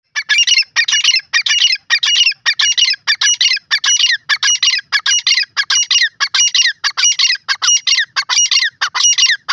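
Grey francolin calling: a loud, harsh, rapidly repeated call, about two phrases a second, kept up throughout.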